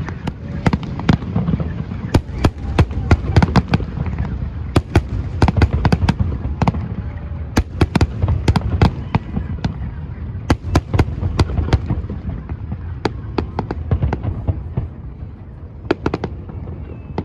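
Aerial fireworks display: many sharp bangs in quick succession over a low rumble, fewer and quieter near the end.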